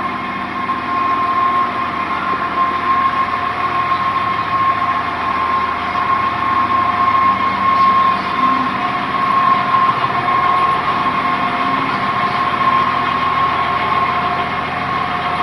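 TMR feed mixer wagon running steadily as it is driven along, its engine and mixing drive giving an even mechanical rumble with a steady high-pitched whine on top.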